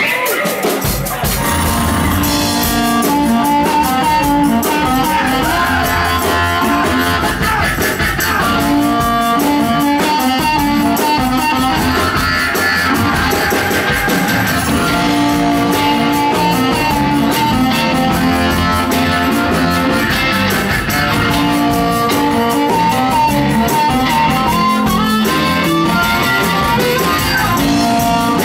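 Live rock band playing an instrumental breakdown, led by guitar over a drum kit.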